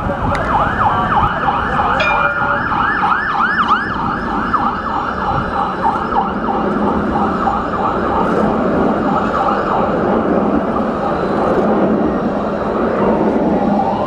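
A Jerusalem light rail tram approaches and passes close by, its running noise growing in the second half, with a rising whine near the end. Over the first half a siren-like warble, rising and falling about three or four times a second, fades away.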